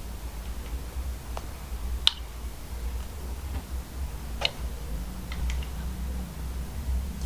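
Slime being handled: a handful of sharp, scattered clicks and pops, the loudest about two seconds in, over a steady low hum.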